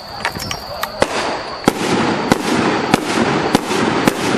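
Fireworks bursting: about a second in, a run of sharp bangs begins, roughly one every 0.6 s, each trailing off, over a rising rush of noise.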